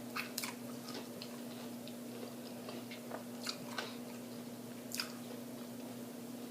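A person chewing food close to the microphone, with scattered crunches and mouth clicks at irregular intervals over a faint steady hum.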